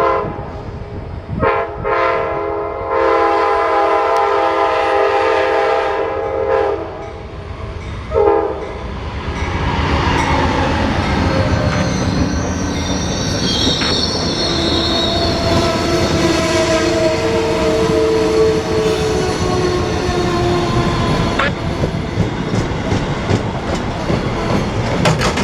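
Amtrak passenger locomotive horn sounding: a short blast, a long blast of about four seconds, then another short one. The train then rolls past with steady wheel rumble and clatter, and wheel squeal comes and goes through the middle of the pass.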